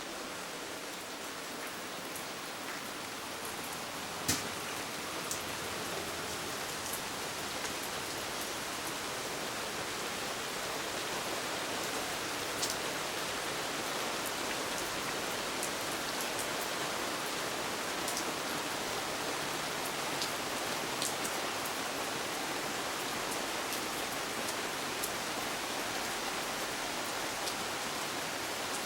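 Rain falling steadily, with a scattering of sharp taps from drops landing close by, the loudest about four seconds in.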